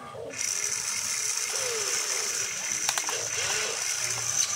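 RC excavator's electric gear motors whining and ratcheting as the boom and bucket arm move. A steady high whine runs under it, with a couple of sharp clicks about three seconds in.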